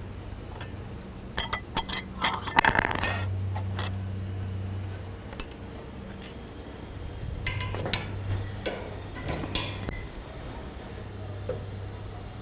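Metal kitchen tongs clinking and clacking as they are picked up and handled, in two bursts of quick clicks, about a second and a half in and again about seven and a half seconds in, over a steady low hum.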